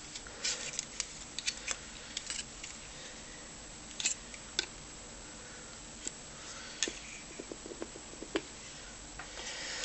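Knife blade cutting and prying at the glue that holds a circuit board in a plastic speaker housing: scattered sharp clicks and scrapes, several close together in the first two seconds, then spread out every second or so.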